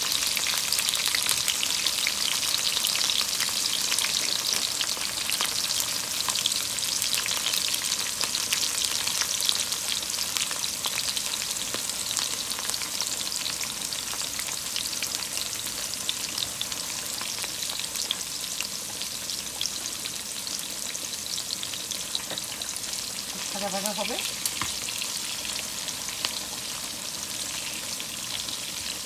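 Chopped green chillies frying in hot peanut oil in a frying pan: a steady crackling sizzle dotted with scattered clicks. The sizzle eases gradually toward the end.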